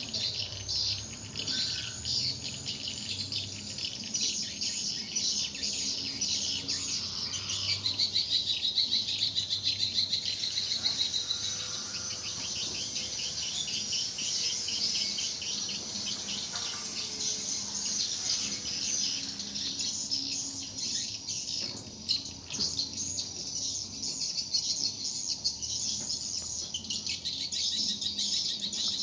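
Swiftlets twittering in a dense, continuous chorus of high chirps. Fast trilling runs of clicks stand out about a third of the way in.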